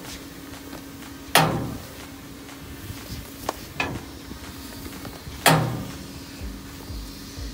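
Two loud metallic clanks about four seconds apart, each ringing briefly, with a few lighter knocks between them, from metal striking the steel frame of a cable drum as it is handled. A steady hum runs underneath.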